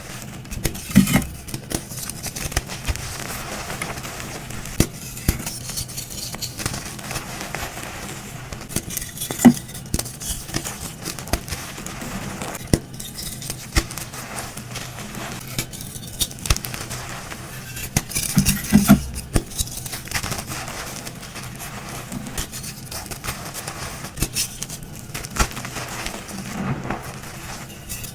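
Dyed gym chalk chunks and blocks being crushed, crunching and crumbling with many sharp cracks and a few louder crunches.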